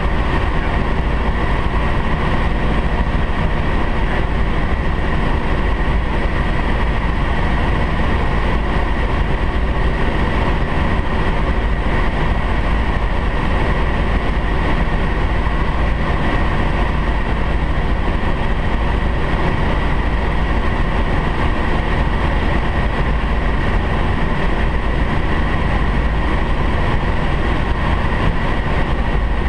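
Helicopter in flight heard from inside the cockpit: steady engine and rotor noise with a constant high whine over it.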